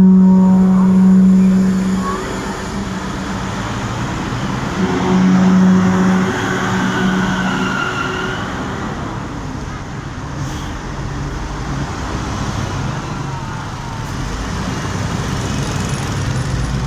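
Basuri multi-tone bus horn sounding a held note that cuts off about two seconds in, then sounds again for a few seconds. Passing bus and road traffic noise runs throughout.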